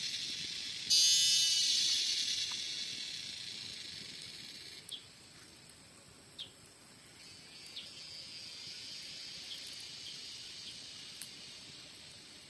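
Cicadas buzzing: a loud, high, finely pulsing drone sets in about a second in and fades over a few seconds, then a second, softer one swells from about halfway through. A few faint clicks are heard over it.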